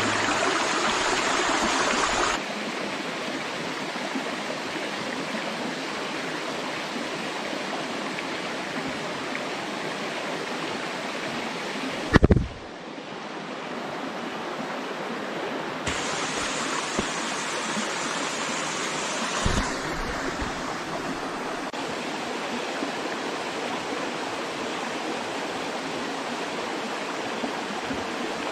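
Waterfall rushing, a steady white-noise roar of falling water that shifts level abruptly a few times. A short low thump comes about twelve seconds in, after which the water is briefly quieter.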